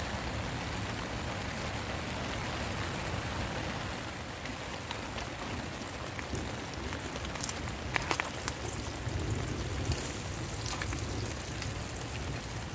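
Steady rain falling, with a few sharper drop hits about eight and ten seconds in.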